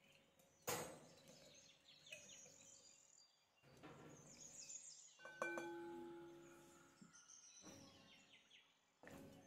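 Faint clinks of a wire whisk against a glass mixing bowl while whisking a marinade, one strike about five seconds in leaving the bowl ringing briefly.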